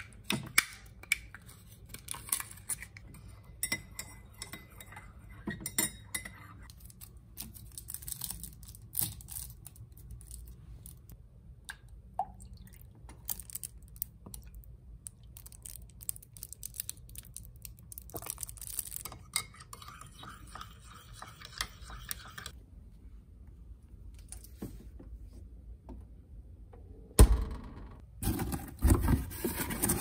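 Metal spoon clinking and tapping against a ceramic coffee mug while stirring, with small handling clicks. Near the end, louder knocks and thumps.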